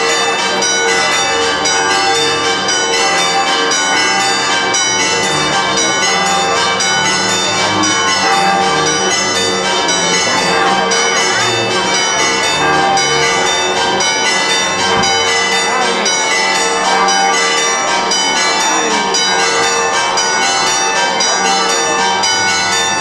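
Church bells pealing continuously and rapidly, many strikes overlapping in a loud, steady festive ringing for the Feast of the Assumption.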